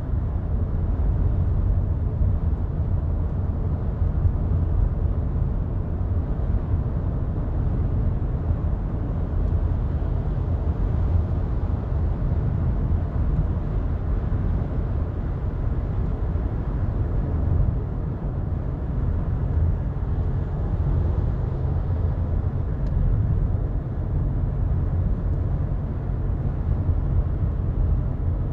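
Steady low rumble of road and engine noise inside a moving car's cabin, even throughout with no changes in pace.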